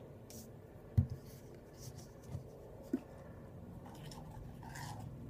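Hands squishing and kneading a sticky glue and shaving-cream slime mixture that has not yet come together, with soft rubbing and a few light knocks about a second in and near three seconds.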